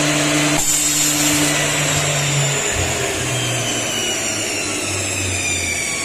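Double-sided CNC wood copy milling machine running, with a steady motor hum and cutting noise. About half a second in, part of the hum cuts off. From about the middle on, a high whine slowly falls in pitch as the spindles run down.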